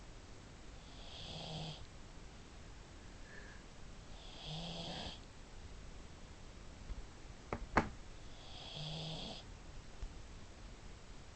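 Pug snoring in her sleep: three snores about four seconds apart, each about a second long with a low buzz and a hissing edge. Two sharp clicks, a fraction of a second apart, a little past halfway.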